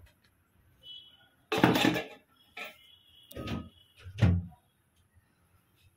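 Kitchen dishes and utensils being handled: three bursts of clatter and knocking, the longest and loudest about a second and a half in, the last ending in a low thud.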